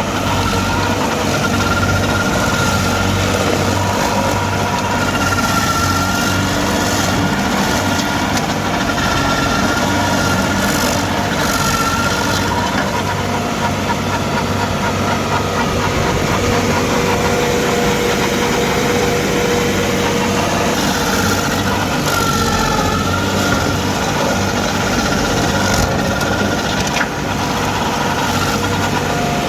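Stump grinder's engine running steadily at a constant level, with a few wavering higher tones over the engine hum.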